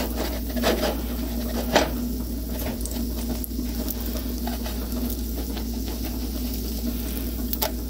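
Pancake batter sizzling in a nonstick frying pan, with a few light scrapes and taps as a plastic spatula is worked under a pancake that is slightly stuck. A faint steady hum runs beneath.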